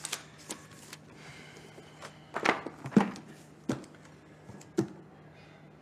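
A handful of short, sudden knocks and taps, spaced irregularly a second or so apart, over a faint steady hum of room tone.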